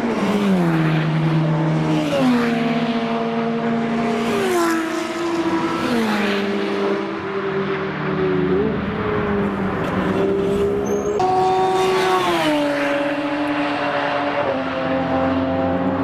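Race car engines at high revs, their pitch dropping in a series of distinct steps as the cars downshift, one after another. Partway through, a different car's engine takes over and steps down again the same way.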